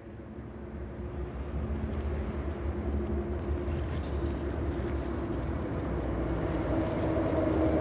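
A low, steady rumble fading in and growing louder, with a steady hum of a few tones becoming stronger near the end.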